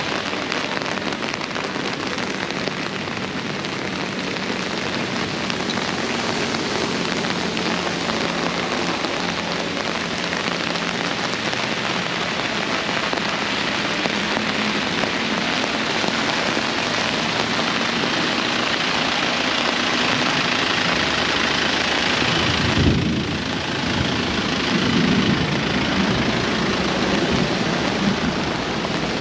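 Heavy rain pouring steadily, with a low rumble coming up about two-thirds of the way through.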